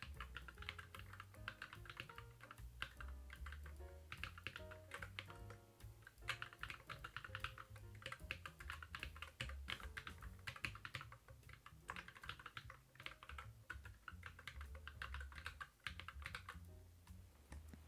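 Fast typing on a Keychron Q11 split mechanical keyboard with Cherry-profile double-shot PBT keycaps: a rapid, continuous patter of keystrokes during a typing test that stops about a second before the end.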